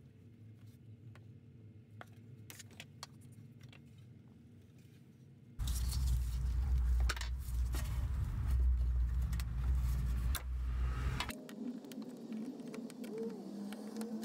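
Light clicks and rattles of pliers working plastic fuel-line quick-connect fittings on a fuel pump module. About halfway through, a loud low rumble joins the clicking for about six seconds and then cuts off suddenly; faint wavering tones follow near the end.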